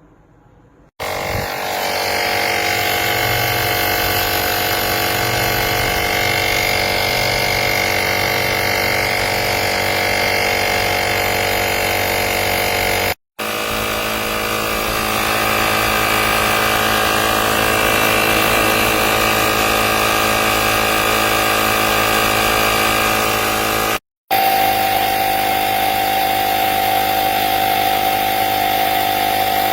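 Portable jump starter's built-in air compressor running with a loud, steady mechanical buzz. It starts about a second in and cuts out for a moment twice.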